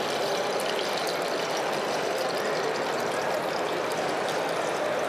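Steady, even rushing background noise with no distinct events, holding at one level throughout.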